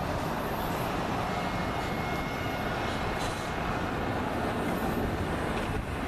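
Steady outdoor city background noise: an even low rumble and hiss, with a few faint clicks near the end.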